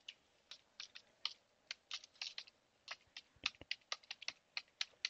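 Computer keyboard being typed on: a run of faint, uneven key clicks.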